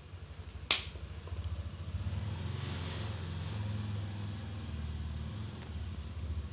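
A low, steady mechanical rumble with a fine rapid pulse, swelling a little in the middle, and one sharp click just under a second in.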